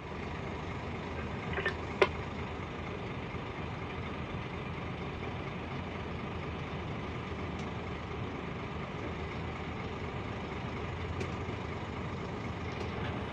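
Steady running of a heavy 12-wheel Scania P440 dump truck's diesel engine, heard from inside the cab, with a single sharp click about two seconds in and a few faint ticks later.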